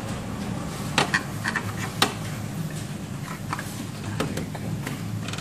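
Light clicks and taps of parts being handled inside an opened Canon plotter printer while it is taken apart, scattered a few times over a steady low hum.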